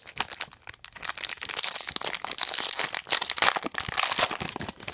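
Baseball trading cards and their pack wrapper being handled by hand: dense papery crinkling and clicking, loudest through the middle seconds.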